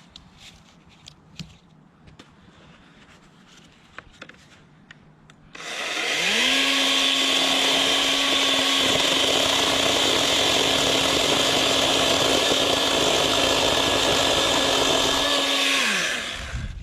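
Greenworks 80V brushless cordless chainsaw's motor spinning up quickly about five seconds in and running at a steady full speed for about ten seconds, then winding down near the end.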